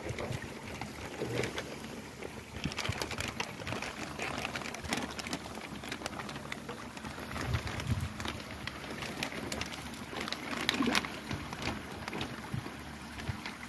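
Thin plastic bag crinkling and rustling as it is handled at the water's surface, with water sloshing and splashing as the bag is emptied into a pond. Irregular crackles run throughout.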